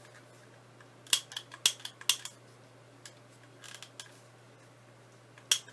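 Handheld butane torch's igniter clicking: a quick run of sharp clicks about a second in, a few faint ones around the middle, and another sharp click near the end.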